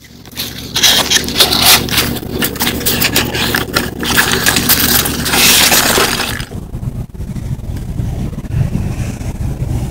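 Styrofoam packing peanuts being cleared by hand off a vending display card: a dense run of crackling, squeaky scrapes and clicks for about six seconds, then quieter, low rumbling handling noise.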